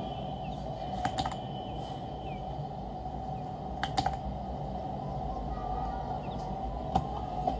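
A few sharp computer mouse clicks: two about a second in, a quick run of three about four seconds in and one more near the end, over a steady faint hum.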